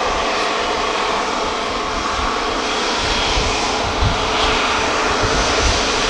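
Airbus A350-900's Rolls-Royce Trent XWB turbofans running at low taxi power as the airliner rolls past: a steady jet whine and rush of noise, with an uneven low rumble coming in about halfway through.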